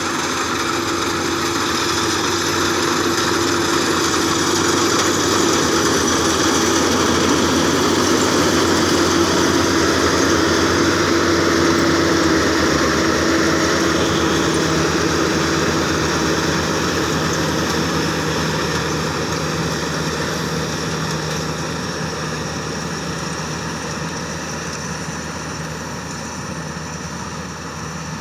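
A World combine harvester's engine and threshing machinery running steadily while harvesting rice. A steady hum shifts to a lower pitch about halfway through, and the sound grows gradually quieter toward the end.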